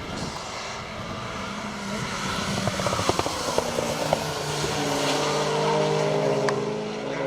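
Car engine running loud under load, a steady pitched drone over a noisy rush, with a cluster of sharp crackling pops about two to four seconds in.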